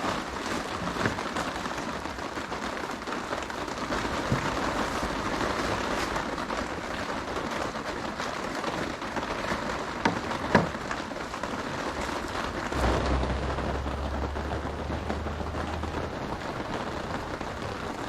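Steady rain falling on a tarp shelter, with a few sharper drop hits standing out. A low rumble comes in for about three seconds about two-thirds of the way through.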